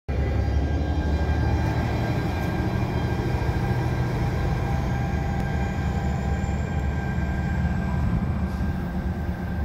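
Bombardier ALP-45DP dual-mode locomotive running in diesel mode, its diesel engines working steadily as it pushes a commuter train away from the station: a steady low rumble. A faint high whine rises slowly in pitch through the second half.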